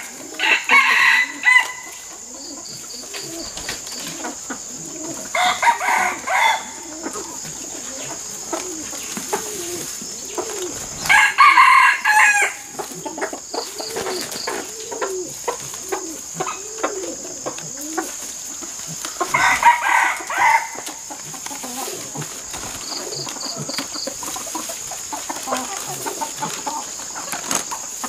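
Roosters crowing about four times, each crow lasting a second or so, over steady hen clucking.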